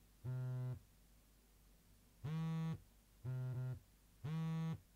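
Eight Sleep Pod 5 vibrating alarm on its heavy pattern at high strength: a low, steady buzzing hum in half-second pulses. One pulse comes, then a pause, then three more a second apart; the third is briefly broken in the middle.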